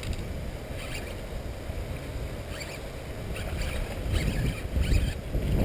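Wind buffeting the microphone, with light rustling and ticking that grows busier in the second half.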